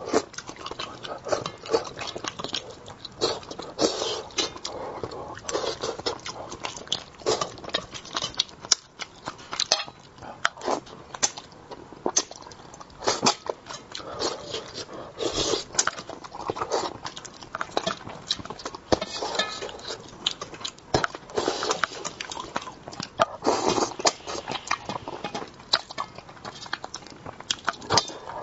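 Close-miked mouth sounds of someone eating spicy braised fish: wet chewing and smacking, an irregular run of short clicks.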